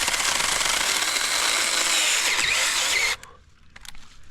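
Small battery-powered Saker mini chainsaw (20-volt) running and cutting a branch, a steady buzzing whirr of motor and chain, then stopping abruptly about three seconds in. A few faint clicks follow.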